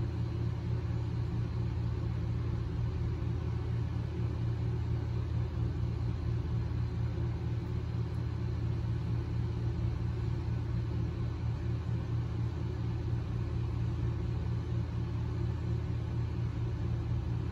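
A steady low rumble with an even hiss above it. It is unchanging throughout, with no distinct events.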